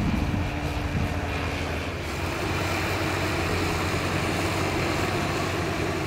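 Crawler bulldozer's diesel engine running with a steady low drone and a wash of mechanical noise; a higher hum that sits over it drops away about a second in.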